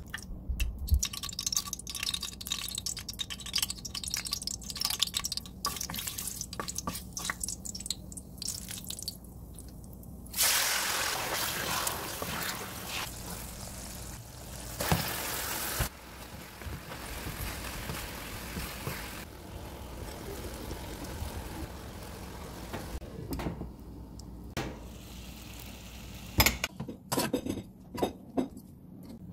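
Pans on a stove: boiling liquid bubbling and popping, then about ten seconds in a loud steady hiss of sugar syrup boiling that fades away, and a few sharp clicks near the end as the rice is stirred.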